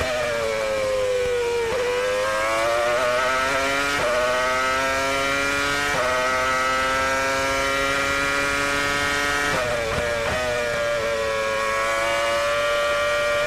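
Renault V10 engine of the 2002 Renault R202 Formula One car, heard onboard at full throttle. The pitch climbs in each gear, with sharp upshift drops about two, four and six seconds in, then rises slowly in a long gear. A little before ten seconds the revs fall and there is a quick run of downshifts, and the engine then holds a steadier note near 13,000 rpm.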